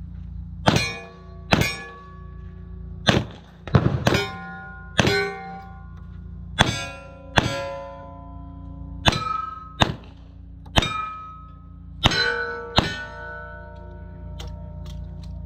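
Steel shooting targets struck one after another, about a dozen sharp clangs spaced a second or so apart, each ringing out with its own pitched tone, then a few lighter taps near the end.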